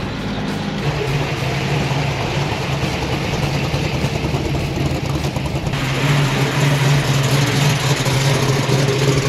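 Engines of classic Holden cars and utes driving slowly past one after another at low revs. The engine sound grows louder and fuller about two-thirds of the way through as a ute passes close.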